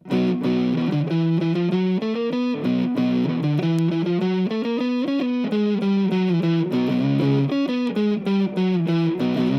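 Jackson Rhoads JS32T electric guitar played through a Caline overdrive pedal into a Marshall Origin 50 amp head, giving an overdriven tone. It plays a distorted riff of chords and quick note changes that starts abruptly and keeps an even loudness throughout.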